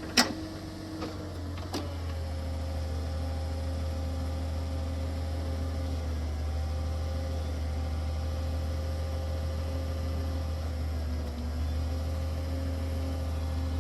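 Engine and hydraulic auger of a post hole drilling rig running steadily as the auger bores into frozen ground against a tree root, with a couple of sharp clicks near the start. The drone picks up slightly about two seconds in.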